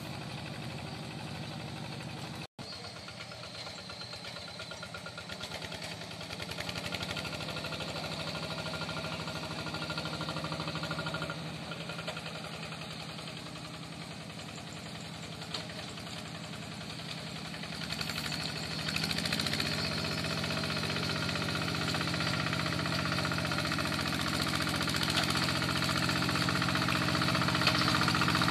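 Single-cylinder diesel engine of a Yanmar Bromo Pro two-wheel hand tractor running with a rapid knocking beat, getting louder from about two-thirds of the way through.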